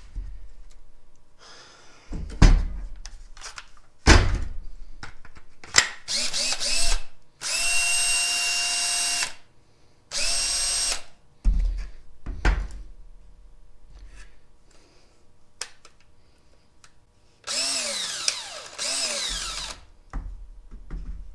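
Makita 18V cordless drill motor run in short bursts: two steady runs of a second or two each, then near the end runs that speed up and wind down with the trigger. Clicks and knocks of the drill being handled fall between the runs.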